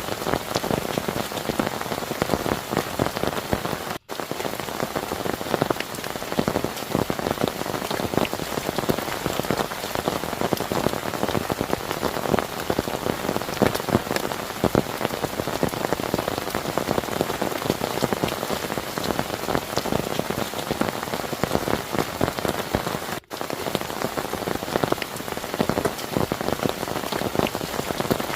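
Heavy rain falling steadily, a dense patter of drops striking a surface, broken by two split-second gaps, one about four seconds in and one near the end.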